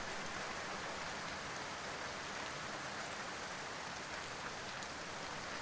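Steady hiss of noise like falling rain, with a few faint scattered ticks.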